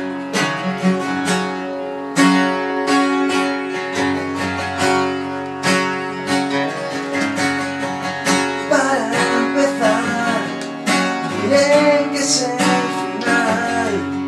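Acoustic guitars strummed and picked live, playing a song's introduction, with regular strokes and ringing chords. A wavering melody line joins over the guitars about nine seconds in.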